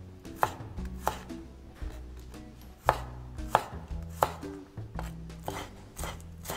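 Chef's knife slicing garlic cloves on a wooden cutting board: a string of sharp, unevenly spaced knocks of the blade against the board.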